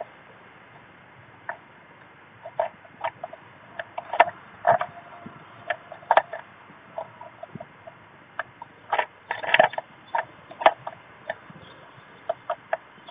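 Irregular taps and scratches from a blue tit's claws and beak on a wooden nest box as it works at the entrance hole, with a thick cluster of them about nine to ten seconds in.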